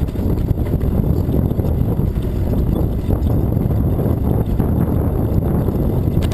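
Wind buffeting the microphone of a camera on a moving bicycle: a loud, steady low rumble, with the bike rolling along under it.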